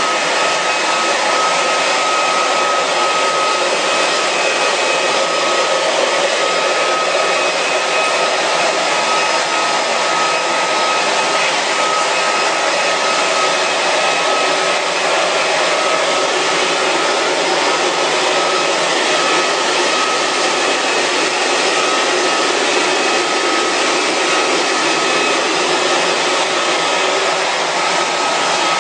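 A fan-driven electric motor running steadily: a constant rush of air with a thin, steady whine, unchanging throughout.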